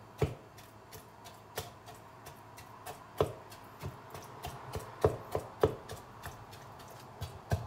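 Kitchen knife repeatedly stabbing into a whole raw chicken on a wooden cutting board: an irregular series of sharp knocks, a few of them much louder than the rest.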